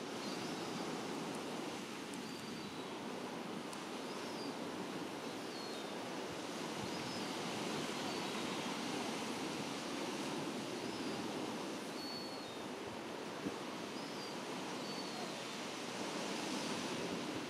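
Steady wash of sea surf breaking on the shore, with faint short high chirps every second or two.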